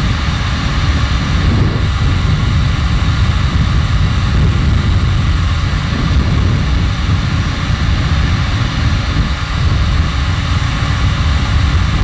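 Electric heat gun blowing steadily right next to the microphone: a loud, even rush of air with a deep rumble underneath. It is heating a solder-seal heat-shrink butt connector to melt the solder ring and shrink the tubing.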